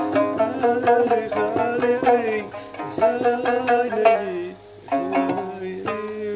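Moroccan Amazigh loutar music: a plucked lute playing a quick, busy melody, with some notes bending in pitch.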